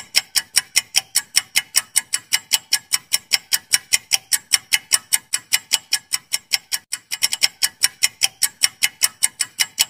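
Clock-ticking sound effect of a quiz countdown timer: sharp, even ticks about four to five a second, with a brief run of quicker ticks about seven seconds in. It starts and stops abruptly.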